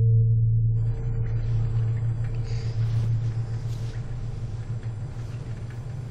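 A deep, steady rumble, with a faint hiss coming in about a second in.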